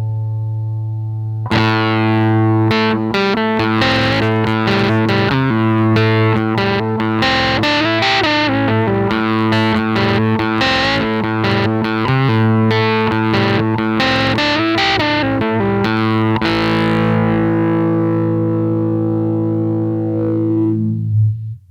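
Guitar played through a Behringer BM-11M low pass filter pedal: a held chord, then about fifteen seconds of fast picked and strummed playing, then a final chord left to ring that cuts off just before the end.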